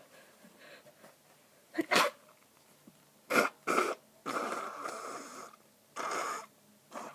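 A person sneezing over and over with a congested nose, from an allergy. One sneeze comes about two seconds in and two quick ones a second later, followed by two longer, noisier blasts and a short one near the end.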